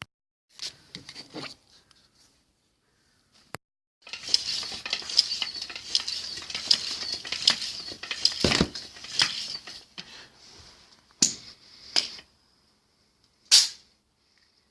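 Hard parts being handled and fitted together: a few clicks, then about six seconds of rattling and clattering, then three sharp separate clicks near the end.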